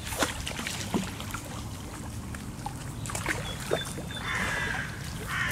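Water splashing and sloshing at the lake edge as a hooked carp is drawn into a landing net, with a few small sharp knocks.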